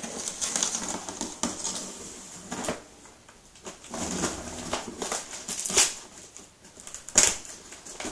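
A large cardboard shipping box being opened by hand: irregular scraping and rustling of the cardboard and its packing tape. Two sharper rips or knocks stand out, the loudest near the end.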